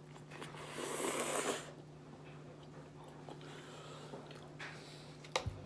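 Eating sounds from a person having spaghetti close to the microphone: a breathy rush of noise lasting about a second, a fainter one later, and a sharp click near the end.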